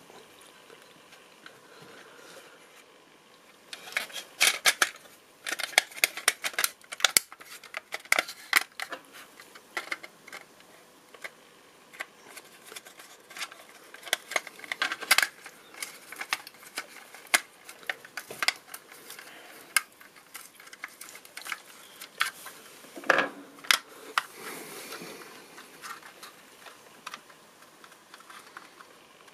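Parts of a 1:24 scale Audi R8 model car clicking and clattering in the hands as it is put together, with a small screwdriver working screws into the chassis underside. After a quiet first few seconds come many irregular sharp clicks and taps, with a loud cluster a little after the middle.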